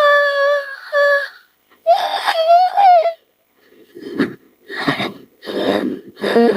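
Edited creature vocal sound effects: two high, wavering cries in the first three seconds, then after a short pause four short rasping, breathy calls about two-thirds of a second apart.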